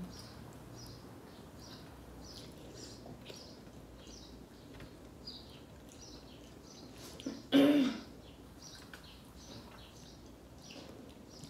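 A person coughs or clears their throat once, sharply, about two-thirds of the way through. Faint short bird chirps repeat about twice a second throughout.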